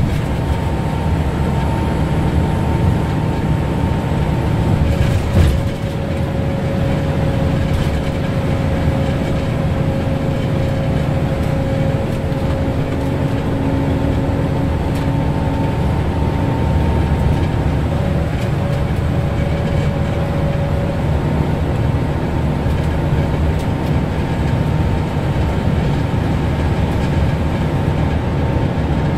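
Cabin sound of a Scania L94UB Lahti Scala city bus cruising at steady motorway speed: a dense engine and road drone with a steady gear whine from its ZF Ecomat 5HP502C automatic gearbox. A brief thump about five seconds in.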